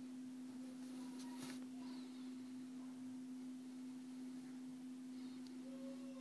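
A steady low hum at one even pitch, with a faint click about a second and a half in.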